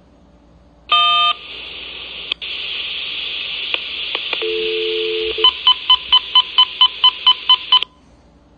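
Railroad radio transmission over a scanner: a short loud tone, then steady radio hiss with a brief low two-note tone, then a fast even string of about a dozen touch-tone (DTMF) beeps, about five a second, before it cuts off. This is the tone signalling a dispatcher uses to key a distant radio base station.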